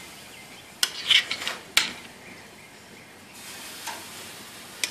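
Marinated pork chops sizzling on a hot gas grill grate, with sharp clicks of metal tongs on the grate about one and two seconds in. The sizzle grows louder from about three and a half seconds in, as another chop goes down on the grate.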